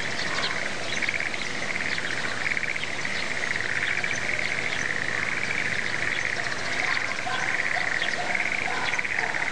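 A chorus of frogs calling from the paddies: a dense, pulsing trill that rises and falls in waves. Small birds chirp over it now and then.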